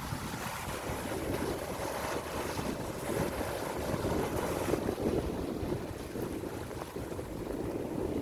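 Sea waves washing on the shore with wind buffeting the microphone in a steady low rumble; the surf swells a little louder midway.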